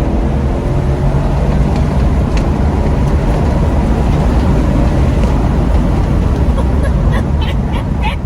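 2013 Chevrolet Caprice PPV's V8 pulling hard at high speed, its engine note buried in a loud, steady rush of road and wind noise.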